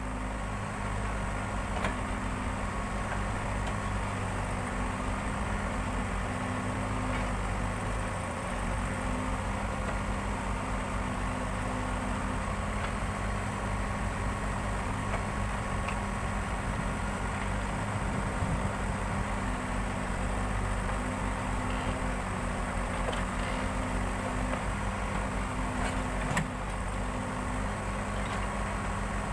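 Backhoe loader's diesel engine running steadily, its pitch holding even, with a brief knock about 26 seconds in.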